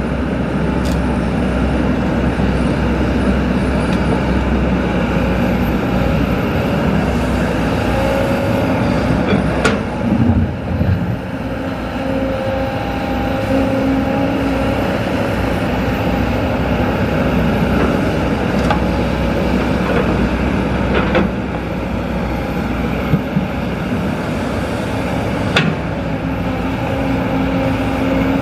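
Kobelco SK200 hydraulic excavator running under load while digging and loading soil: a steady diesel engine sound with a hydraulic whine that shifts in pitch as the boom and bucket move, and a few sharp knocks.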